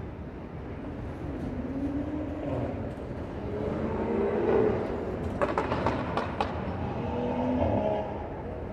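Road vehicle engines accelerating past, their pitch rising and falling several times over steady traffic noise, with a few sharp clicks in the middle.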